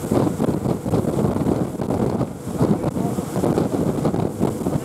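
Wind buffeting the microphone on a rigid inflatable boat running at speed. Underneath are the drone of its twin Suzuki 200 hp outboard engines and the rush of spray off the hull.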